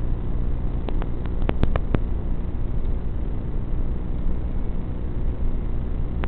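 Tinyhawk 3 micro FPV whoop drone's motors running steadily in flight, with a few sharp clicks between about one and two seconds in.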